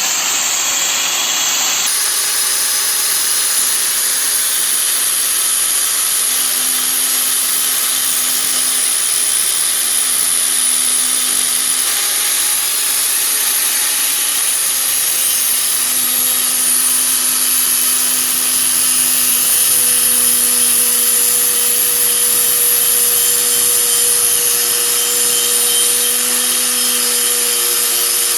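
Angle grinder with a thick grinding disc running steadily against a car's steel brake disc, grinding off the worn ridge that rubs on the brake pad and makes the wheel squeal. It is a continuous, loud, hissing grind, and the motor's pitch wavers slightly as it bears on the metal.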